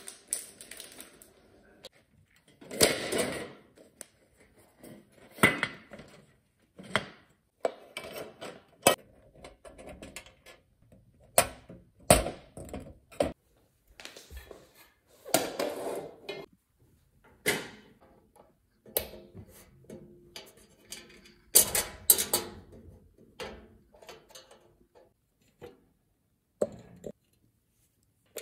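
Irregular knocks, clinks and clatters of household objects being handled and set down, one every second or two, with short silent gaps between.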